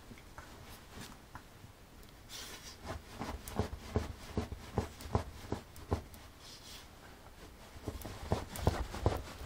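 A small dog rolling and squirming on its back on a floor: irregular soft thumps and scrapes as its body and paws bump and rub against the floor, busier from about three seconds in.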